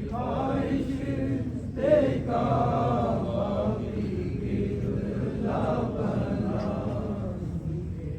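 A voice chanting in long, wavering, drawn-out phrases over a steady low hum.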